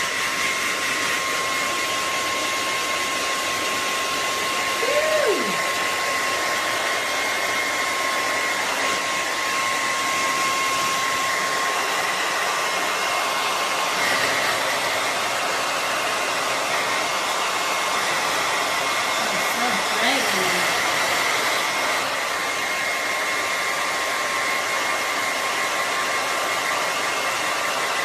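Handheld hair dryer running steadily: a loud rushing air noise with a constant high whine. Over it come brief voice sounds that slide in pitch, one about five seconds in and more around twenty seconds in.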